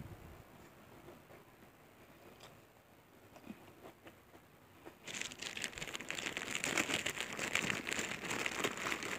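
Crisp cow-skin crackers (kerupuk jangek) being broken apart by hand. A dense crackling and crinkling starts about halfway through and keeps going; before that it is quiet.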